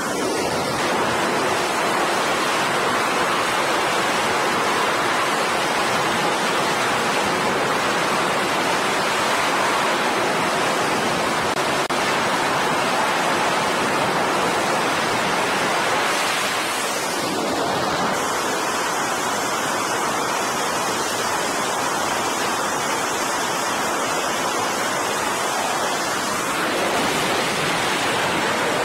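F/A-18 Super Hornet jet engines giving a steady, loud roar at high power on a carrier flight deck during catapult launches, with a brief shift in the roar about 17 seconds in.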